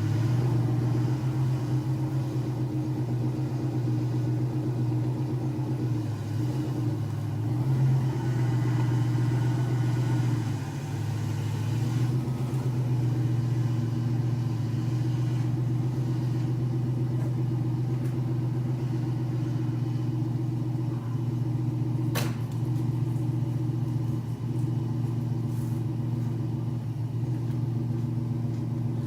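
1987 Mustang GT's 5.0-litre V8 idling steadily after a cold start, with the idle wavering briefly in the first third. A single sharp click about two-thirds through.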